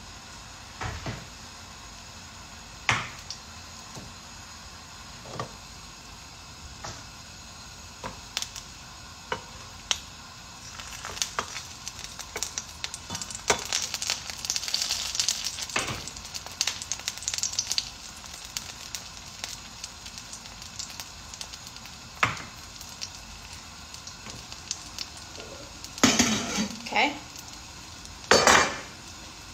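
Beef rib frying in hot butter in a pan, a steady sizzle with tongs clicking against the metal now and then; the sizzle grows louder and more crackly for several seconds in the middle. Near the end come two loud clatters of cookware.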